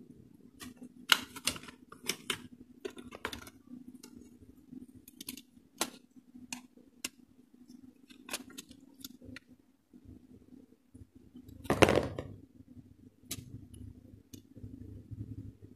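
Handling of an embroidery machine control panel's metal mounting plate and circuit boards: scattered light clicks and knocks, with one louder clunk about three-quarters of the way through. A faint steady hum runs underneath.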